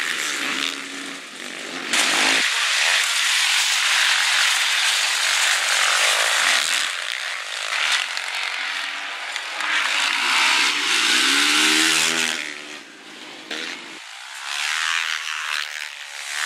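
Supermoto motorcycle engines racing, revving hard and rising and falling in pitch as the bikes accelerate and pass. The sound drops away for a few seconds late on, then picks up again.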